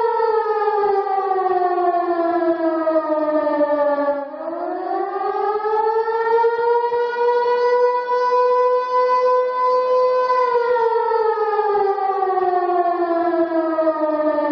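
Civil-defense-style warning siren wailing as part of an emergency alert. Its pitch slides slowly down, climbs back up about four seconds in, holds steady for a few seconds, then slides down again near the end.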